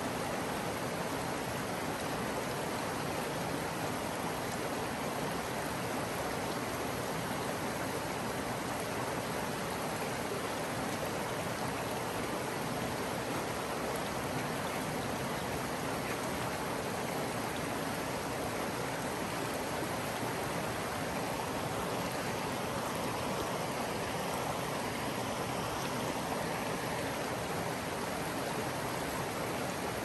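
A creek running: a steady, even rush of flowing water with no distinct splashes.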